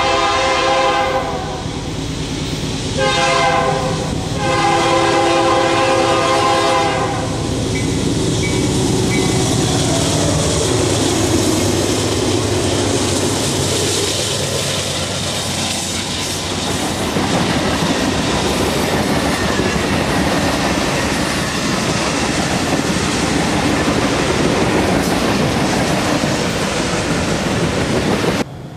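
Brand-new BNSF GE diesel locomotives blow their air horn, a chord of several notes, in three blasts (long, short, long) on approach. They then pass at speed with engines running, and a long freight train rolls by with steady wheel and rail noise and a clickety-clack from the cars until the sound cuts off suddenly near the end.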